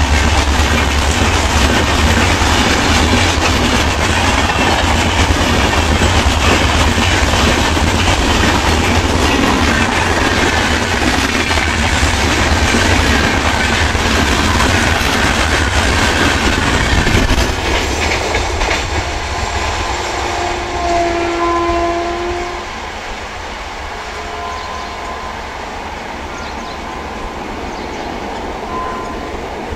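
LHB passenger coaches of an Indian Railways express rushing past close by, with loud wheel-on-rail rumble and clickety-clack over the rail joints. The noise eases off after about seventeen seconds, and a train horn sounds in short blasts in the latter part.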